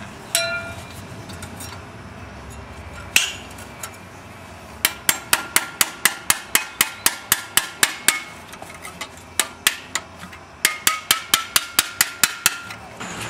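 Metal tools striking and working on the Subaru EA82 engine where it is stuck on the bellhousing dowel pins: a ringing metallic clank near the start, a single knock, then two runs of sharp, evenly spaced metallic taps at about four a second.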